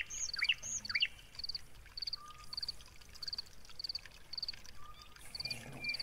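Night-time chorus of small calling animals in open countryside: a high, regular chirp repeats about twice a second, with other rising chirps and short whistles mixed in.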